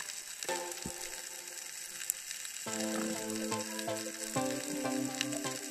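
Steady underwater crackling hiss, the fine sizzling crackle of the seabed heard through a submerged camera. About two and a half seconds in, background music of held notes and chords comes in over it.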